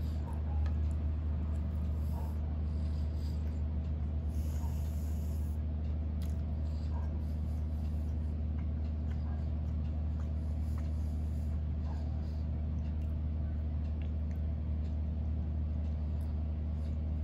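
Close-up eating sounds: soft chewing and small wet mouth clicks while eating soft cake. A steady low hum runs underneath all the way through and is the loudest thing heard.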